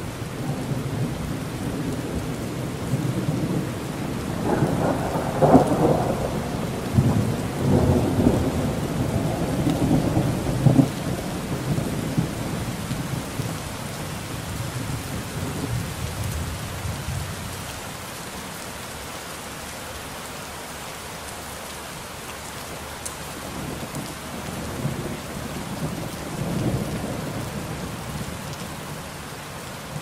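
Steady rain falling, with rolling thunder: a long rumble, loudest in the first third, dies away by about the middle, and a second, weaker roll comes later, under the even hiss of the rain.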